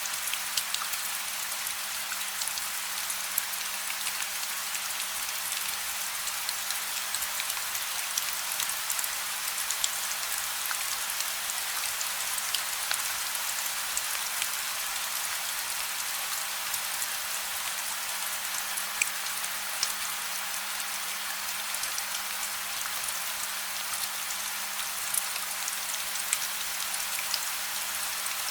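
Steady gentle rain with no thunder: an even hiss of rainfall with scattered sharper drop ticks.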